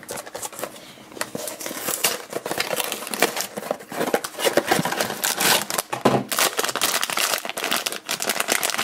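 A foil blind-bag wrapper being handled and torn open: dense crinkling and crackling from about two seconds in.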